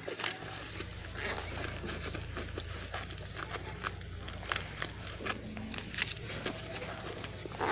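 Irregular crackling clicks and rustling as a cat shifts on a denim-covered lap close to the microphone, with a louder rustle near the end.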